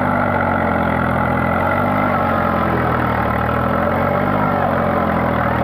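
Swaraj tractor's diesel engine running steadily, the tractor bogged in mud, its pitch wavering slightly about two seconds in.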